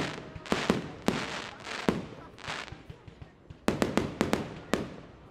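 Fireworks shells bursting overhead with sharp bangs, one after another, each trailing off in an echoing rumble. A quick cluster of bangs comes after a short lull about three and a half seconds in.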